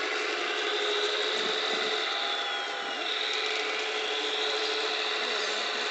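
Hydraulic pump of a Wedico 1:14.5 scale RC CAT 345D LME excavator running with a steady electric whine, its pitch sliding down and back up as the arm and bucket move.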